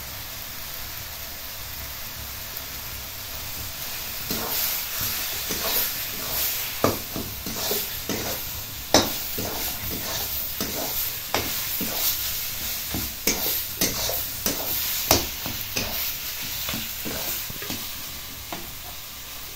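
Taro leaves sizzling in a metal kadai. From about four seconds in, a spatula scrapes and clinks against the pan in irregular strokes as the greens are stirred.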